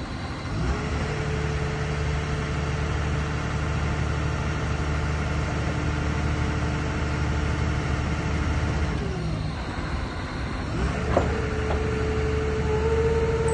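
Asphalt paver's diesel engine running steadily under a low drone. A whine rises to a steady pitch about a second in, drops away around nine seconds and comes back near eleven seconds, with a brief knock as it returns.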